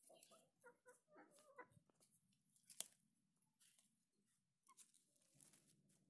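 Faint crunching and rustling of dry soil and dead leaves as hands press earth around a newly planted seedling, with one sharp click about three seconds in. Short faint animal calls sound in the first two seconds.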